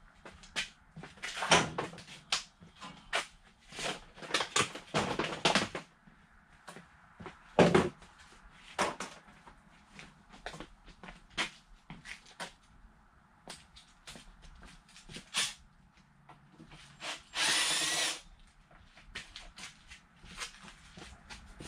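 Scattered knocks and plastic clatter as a quad's body panels and fasteners are taken off. A power drill runs once for about a second near the end.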